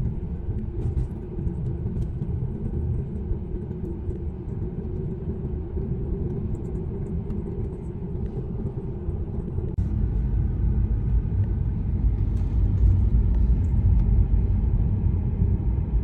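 Car driving slowly through snow, heard from inside the cabin: a steady low rumble of engine and tyres with a faint steady hum. The rumble grows louder about ten seconds in.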